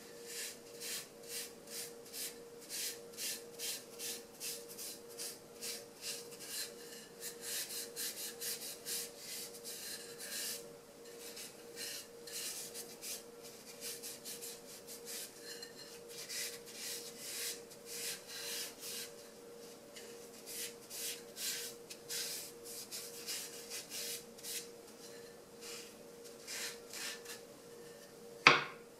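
Oil being rubbed into wooden spoons and dishes with a wipe: a long run of short, brisk rasping strokes, about two to three a second, with brief pauses. Near the end a wooden utensil is set down on the table with one sharp knock.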